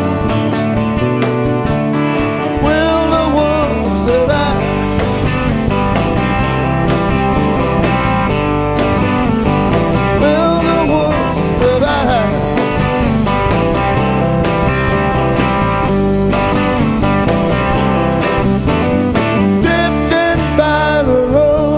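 A live rock band plays a song, with electric and acoustic guitars, a drum kit, and a man singing lead.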